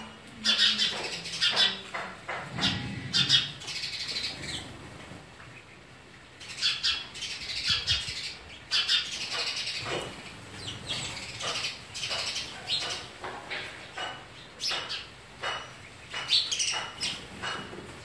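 House sparrows chirping: many short, high chirps in quick clusters, with a brief lull about five seconds in.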